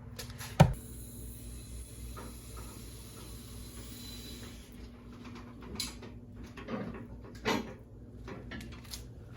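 A single sharp knock about half a second in, then a faint steady low hum with a few soft knocks and handling sounds.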